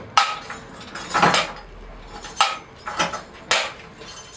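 Sharp percussive strikes at an even pace, about one a second, each with a short metallic ring.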